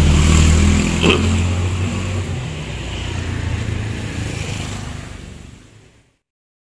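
A motor vehicle engine running close by, a steady low hum that fades away over a few seconds as traffic passes. There is a single knock about a second in, and the sound dies out to silence near the end.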